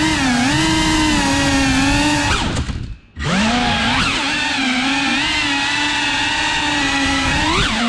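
Cinewhoop FPV drone's motors and ducted propellers whining, the pitch bending up and down with the throttle. About two and a half seconds in the sound falls away almost to nothing for half a second as the throttle is cut, then spools back up with a rising pitch.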